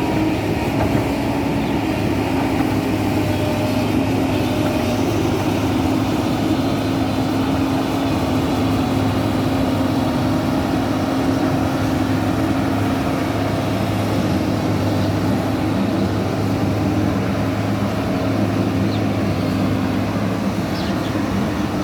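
Large excavator's diesel engine running steadily at a constant pitch, with no pauses or revving.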